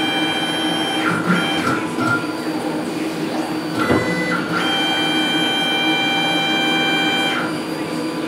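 A full-colour 3D printer's motor drives the build platform up and down on its lead screw with a steady multi-tone whine. The whine stops about a second in, there is a sharp knock about four seconds in with the platform at the top of its travel, and the whine runs again for about three seconds as the platform lowers.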